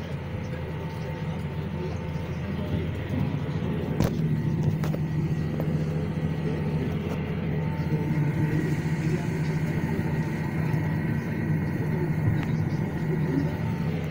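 Claas tractor's diesel engine running steadily under load, heard from inside the cab while it pulls a rake windrowing wheat straw. A sharp click sounds about four seconds in.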